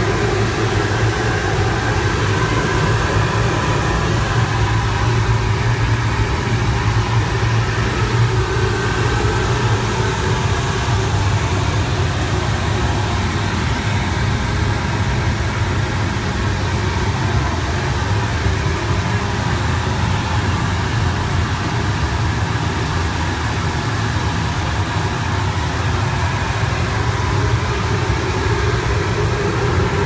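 Commercial gas-fired water heaters running in a boiler room: a loud, steady mechanical hum with a deep, unchanging drone underneath.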